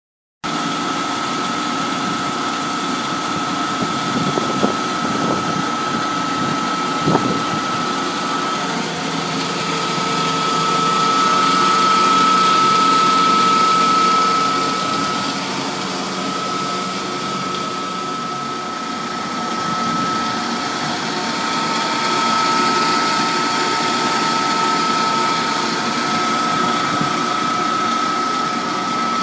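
Taco cooling tower pump running: a steady mechanical hum with a strong, constant high whine over it. It swells slightly in the middle, and there are two brief knocks a few seconds in.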